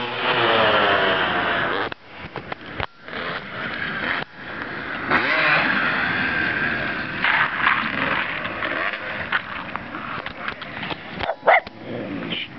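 Dirt bike engine revving hard, its pitch rising and falling as the throttle is opened and closed. A brief, loud sharp sound comes near the end.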